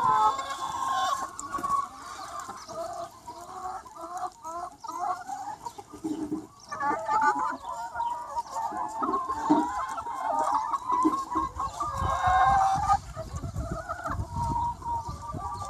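A large free-range chicken flock clucking and calling, many hens overlapping in a continuous chatter. A low rumble joins in during the last few seconds.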